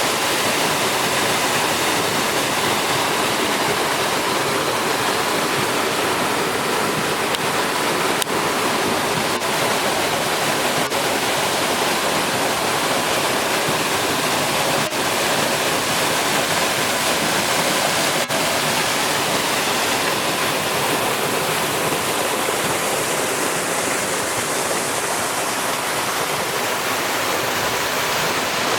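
Waterfall on a creek, falling water giving a steady, even rush with no change in level.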